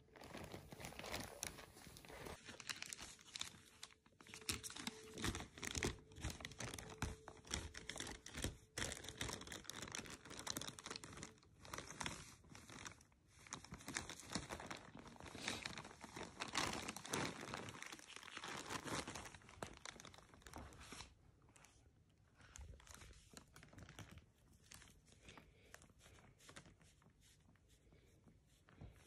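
A thin plastic shopping bag crinkling and rustling as a kitten crawls around inside it. The crackling is dense and irregular for about the first twenty seconds, then grows quieter and sparser.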